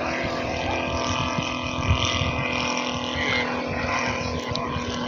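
The engine of a giant-scale radio-controlled Curtiss JN-4 Jenny model biplane running at a steady pitch in flight.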